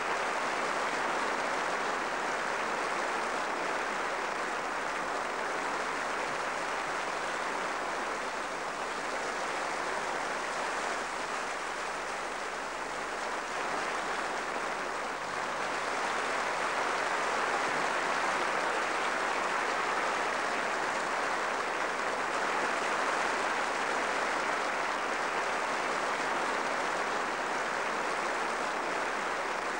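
Large arena crowd giving a steady ovation, applauding and roaring.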